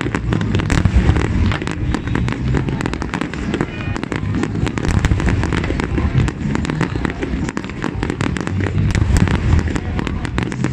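Fireworks display: a dense run of shell bursts and crackling reports in quick succession, with a music soundtrack underneath.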